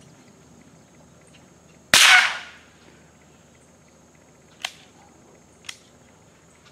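A single .22 Long Rifle gunshot about two seconds in: a sharp crack with a short fading tail. Two much fainter sharp cracks follow about a second apart.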